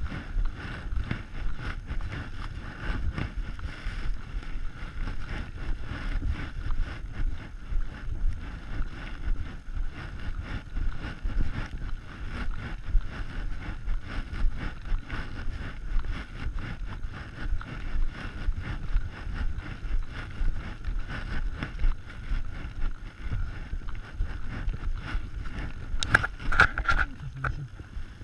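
Footsteps crunching through snow while walking, with rubbing and wind noise on a body-worn action camera's microphone; a louder rustle near the end.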